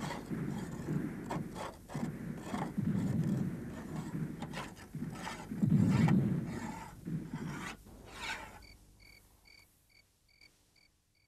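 Sword blades being sharpened: repeated rough scraping strokes of steel on stone. Near the end they fade out and crickets chirp steadily, about three chirps a second.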